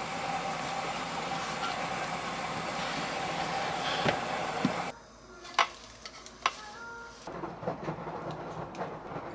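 A steady hiss with a couple of knocks of a knife on a wooden cutting board as cherry tomatoes are sliced. From about five seconds in it goes quieter, with light clicks and rustles of tongs setting chicken pieces onto lettuce.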